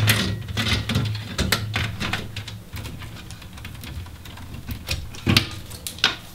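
Irregular clicks, taps and light rattles of power-supply cables and their plastic connectors being handled and routed through a metal PC case. A low hum runs under them and stops a little before halfway through.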